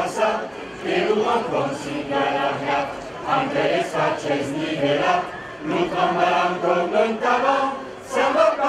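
A choir of adults and children singing a song in Niçois together, in phrases of held notes with short pauses between them.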